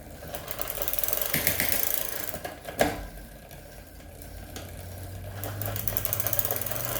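Fat bike chain and drivetrain running as the cranks are turned by hand, with a steady rapid ticking. A sharp clack about three seconds in, and another near the end, as the chain shifts down a gear.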